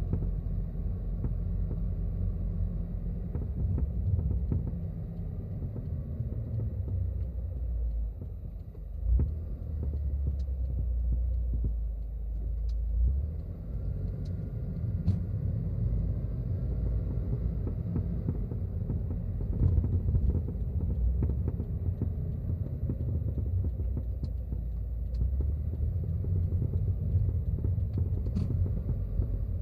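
Subaru WRX S4 driven at low speed, heard from the passenger footwell: a steady low road rumble with a few sharp clicks and knocks. These are the clunking, cracking noises from the left front that the owner reports between about 20 and 40 km/h.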